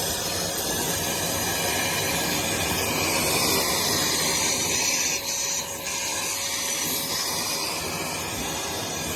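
Armor All AA255 2.5-gallon wet/dry shop vacuum running: a steady motor with the hiss of rushing air, dipping briefly a little past halfway.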